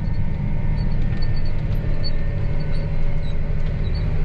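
Tractor engine running steadily under load, heard from inside the cab as a constant low rumble.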